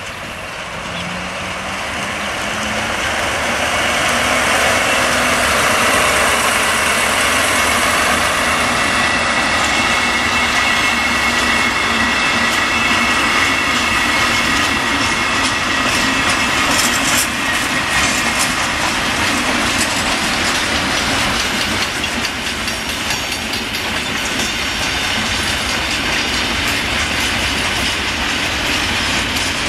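Diesel locomotive hauling a freight train past at close range: the engine grows louder over the first few seconds as it approaches, then the wagons roll by with wheels clicking over rail joints. A high steady squeal is heard for a few seconds around the middle.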